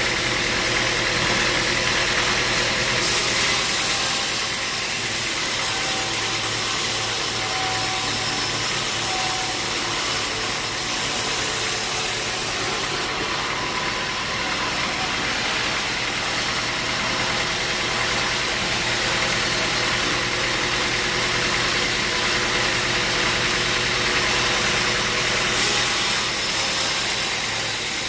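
Sawmill machinery running steadily: an engine-like hum under a hiss that grows and fades in strength a few times.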